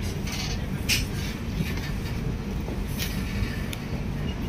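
Passenger train running on the rails, a steady low rumble with a few short sharp clicks.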